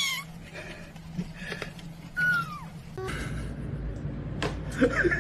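Domestic cat meowing: the end of one meow right at the start, then a single short meow falling in pitch a little over two seconds in.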